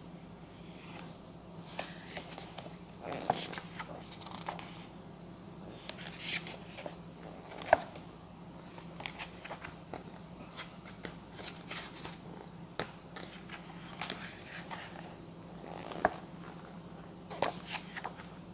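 Pages of a large book being handled and turned: scattered paper rustles and small taps, over a faint steady low hum.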